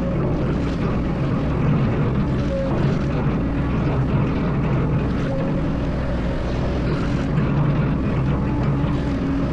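Excavator's diesel engine running steadily under load, with short higher tones coming and going over the low rumble.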